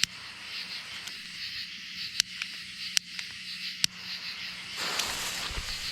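Crickets chirping steadily, with several sharp clicks about two, three and four seconds in, and a rustling hiss that starts near the end.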